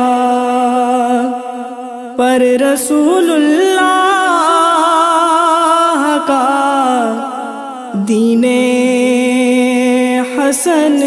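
A woman singing a naat in a slow, ornamented melody that bends and glides over a steady held drone. The voice drops away briefly about a second and a half in, and again near seven seconds, then comes back in.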